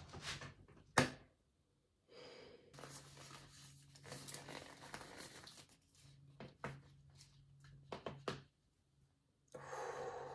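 Thin disposable glove being pulled on and worked over the hand: irregular rustling and stretching, with a sharp click about a second in.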